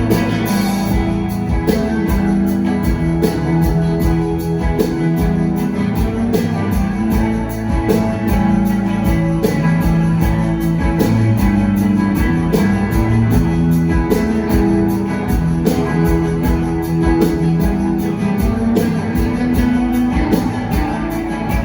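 Rock band playing live: electric guitars ringing and strumming over a steady drum beat, in an instrumental stretch of the song with no singing.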